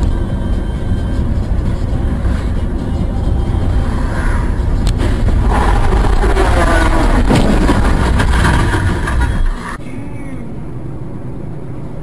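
Steady low road and engine rumble inside a moving car, picked up by a dash camera. About nine and a half seconds in the rumble cuts off abruptly, leaving a quieter steady noise.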